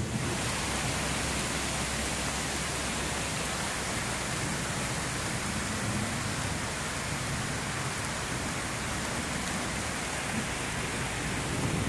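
Steady rain falling in a forest during a thunderstorm: a continuous, even hiss.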